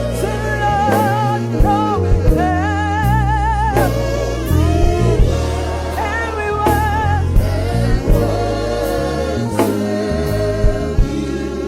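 Live gospel praise music: a singer holding long notes with wide vibrato and vocal runs over sustained bass and keyboard, with regular drum hits.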